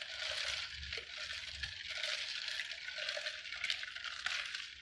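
A wooden spoon stirs potassium hydroxide into ice water in a pitcher to dissolve the lye. It makes a steady gritty swishing with many small clinks and rattles of ice against the sides.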